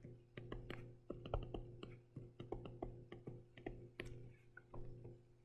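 Faint, irregular clicks and taps of a stylus tip on a tablet screen during handwriting, over a steady low electrical hum.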